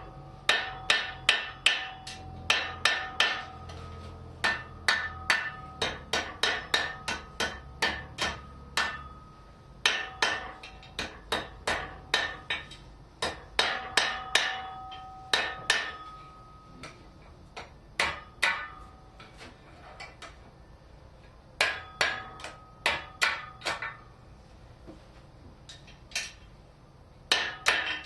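Blacksmith's hammer striking a red-hot 3/8 inch mild steel rod on an anvil, forging a right-angle bend. Runs of blows at about two to three a second, broken by short pauses, with the anvil ringing with a clear tone after many strikes.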